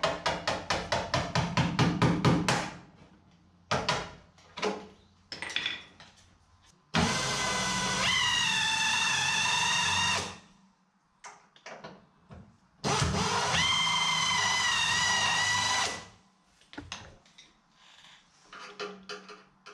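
Power tool work on car body metal: a fast rattle of blows, about eight a second, for the first couple of seconds. Then two runs of a drill-like tool, each about three seconds, whose whine shifts in pitch as it bears on the work, with odd knocks of tools and parts in between.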